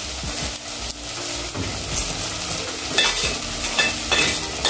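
Frying food sizzling as dry-fried omena are added to the pot of tomato and onion sauce, with a metal spoon scraping the fish out of a stainless steel frying pan several times in the second half.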